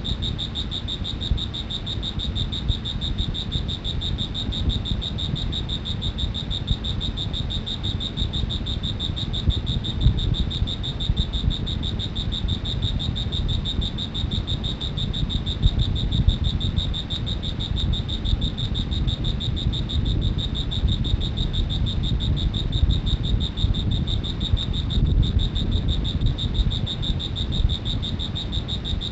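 An insect trilling without a break: a high, finely pulsed tone that holds steady, over a low rumbling background.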